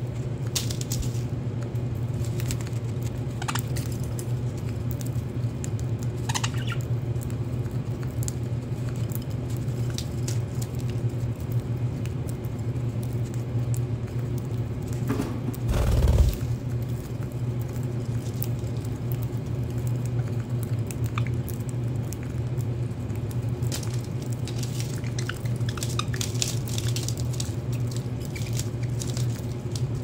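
Budgerigars pecking and husking seed in terracotta dishes: a stream of small sharp clicks, thicker near the end, over a steady low hum. A dull thump about sixteen seconds in is the loudest sound.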